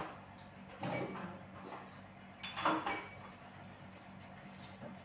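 Dishes clinking and clattering as they are handled: a short burst about a second in and a louder one around the middle, with a brief ring, over a low steady hum.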